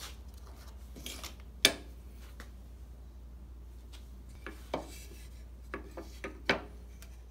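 Handling noise from a flat steel utility blade and an old wooden handsaw handle being picked up and fitted together on a workbench: rubbing and scraping, with a sharp metallic clack about one and a half seconds in and a few lighter knocks near the end.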